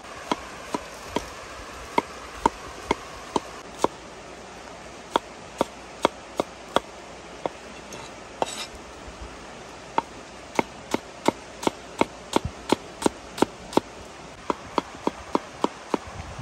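Cleaver slicing small red onions on a round wooden chopping board: sharp knocks of the blade striking the wood in irregular runs, up to about three a second, broken by short pauses.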